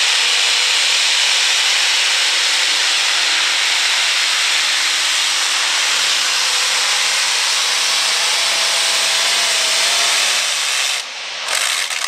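Multi-engine modified pulling tractor running hard down the track under load, a loud, steady, harsh engine racket. A little before the end it drops off sharply as the throttle is cut.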